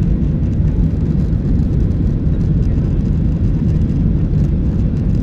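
Boeing 737-800 jet engines and rushing airflow, heard inside the passenger cabin during the climb after takeoff: a steady, deep roar with no change.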